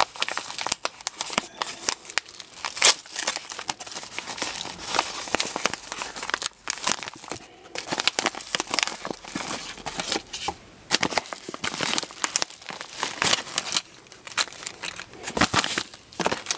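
Shipping packaging crinkling and tearing as a parcel is unwrapped by hand: a dense run of rustles and rips with a few short pauses.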